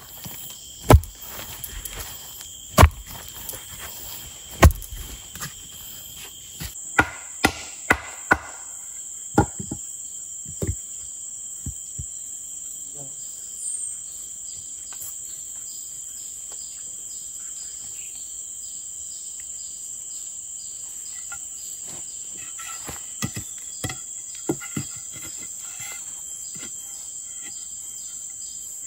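Forest insects, crickets among them, chirping steadily, with a rapid pulsing chirp joining after the middle. Sharp knocks sound over them: three about two seconds apart at the start, a quick run of them around eight seconds in, and a few more near the end.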